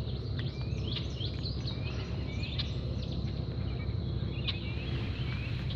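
Songbirds chirping and calling in quick, short rising and falling notes, busiest over the first few seconds, over a steady low background rumble of outdoor noise.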